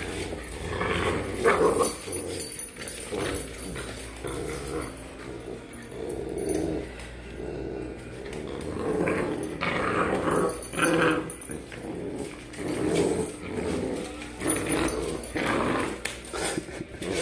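Two pit bull puppies play-growling in repeated short bursts as they tug against each other on a rope toy.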